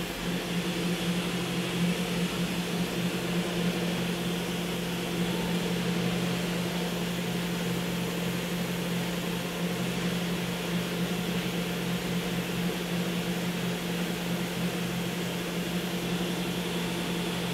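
Steady hum of a powered-up Kia HC800 horizontal machining center: a constant low hum with a fan-like rushing noise over it.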